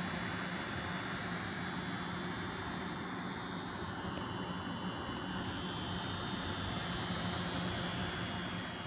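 Noctua NH-D15 CPU cooler's 140 mm fans running in a pull configuration, heard close up: a steady rush of air with a constant buzz in it. The buzz starts when the fans sit close to the heatsink fins and stops when they are disconnected; its cause is unknown to the owner.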